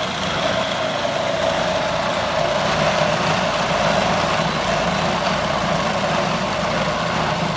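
Food processor motor running steadily, its blade mincing a raw ground beef and bacon mixture into a paste.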